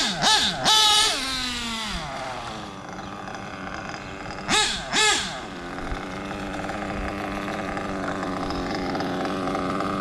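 Nitro RC buggy engine blipped sharply twice near the start, then winding down in a long falling whine. It is blipped twice more about halfway through, then settles into a steady idle. The idle has just been adjusted and is still not running perfectly, with the tank almost out of fuel.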